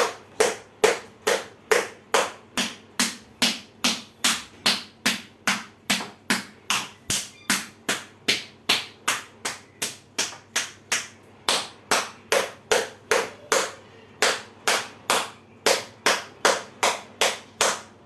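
Hands slapping or patting a patient's body in a steady run, about three sharp slaps a second, with a couple of short breaks.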